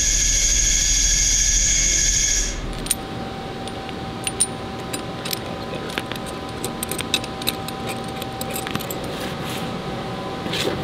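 CNC lathe spindle and chuck spinning with a steady high whine, which stops after about two and a half seconds. Then come light metallic clicks and clinks as steel lathe jaws and a workpiece stop are handled and fitted together.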